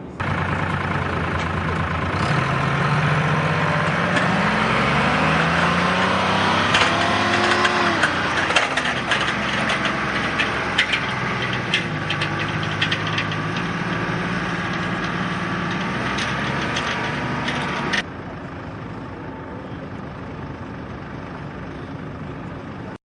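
An engine running, its pitch climbing and then dropping sharply, with a run of sharp clicks and knocks over it. The sound cuts in and cuts off suddenly, leaving a quieter steady noise.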